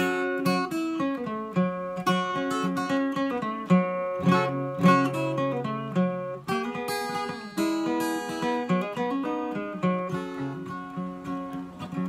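Steel-string acoustic guitar with a capo playing an instrumental break: a melody of picked notes, one after another, over lower bass notes, with some strummed chords.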